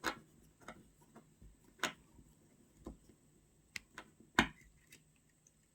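Small, irregular clicks and taps of a precision screwdriver seating and driving a tiny screw into a smartphone's frame. There are about seven sharp ticks, the loudest at the start, about two seconds in and about four and a half seconds in.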